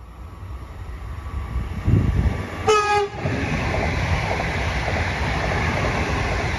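A train running through at speed, its rumble and rail noise building over the first few seconds and then holding steady. One short horn blast sounds near the middle.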